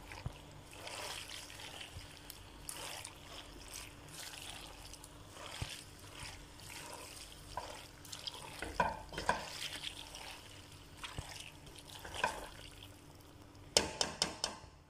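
A spatula stirring saucy macaroni and chopped parsley in a stainless-steel pot: wet squelching and scraping in irregular strokes, with a quick run of sharp taps near the end.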